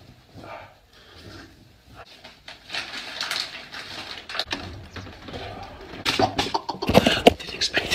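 A man laughing close to the microphone: breathy, stifled laughter at first, then louder bursts near the end.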